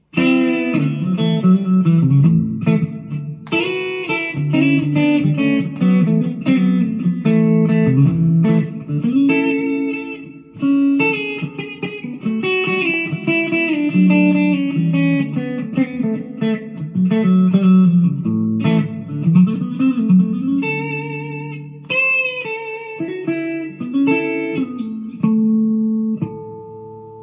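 Harley Benton HB TE-30 BE Telecaster-copy electric guitar played through an amp: picked single notes and chords, ending on a chord left to ring and fade.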